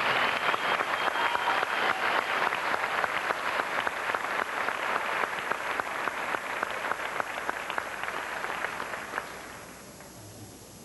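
Audience applauding, a dense patter of many hands clapping that gradually thins and dies away about nine seconds in.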